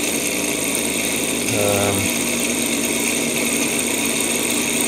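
Small propeller-driven Stirling engine running, with a fast, steady mechanical rattle from its pistons and crank and the whirr of its spinning propeller. It is running in reverse, blowing its air backwards.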